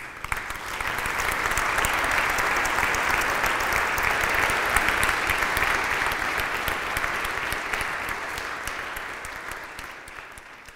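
Audience applauding: the applause swells up over the first second, holds steady, then gradually fades near the end.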